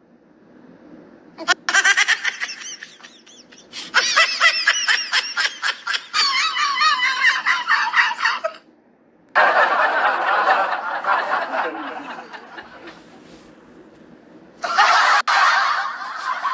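Laughing sound effects: several different clips of laughter spliced one after another, each cutting in and out abruptly, with short quieter gaps between them.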